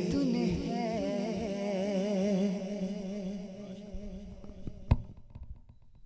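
Male naat reciter's voice holding the final sung note with a wavering vibrato, fading away over about three seconds. About five seconds in comes a single sharp knock from the handheld microphone being set down.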